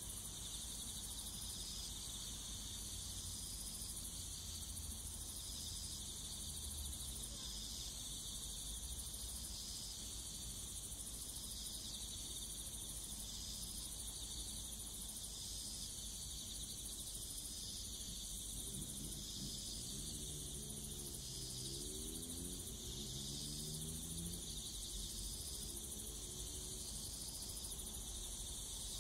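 Insects chirping in a steady chorus, high-pitched, pulsing about once every second and a bit.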